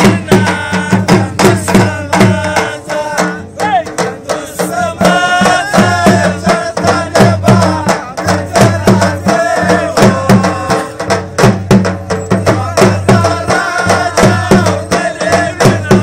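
Dhol drum beaten in a fast, steady attan rhythm, with a wavering melodic line over it.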